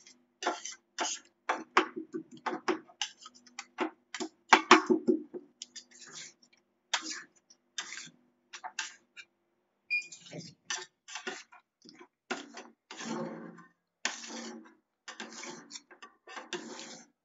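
Metal spatulas chopping and scraping on a rolled-ice-cream cold plate: an irregular run of sharp taps and clacks, with longer scrapes in the second half.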